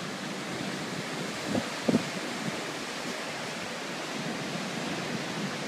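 Steady rushing of ocean surf breaking on a beach, mixed with wind on the microphone. Two brief low bumps come about one and a half and two seconds in.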